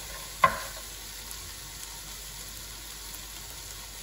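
Chopped lobster pieces sizzling steadily in hot oil with garlic and onion in a frying pan, with one sharp knock about half a second in.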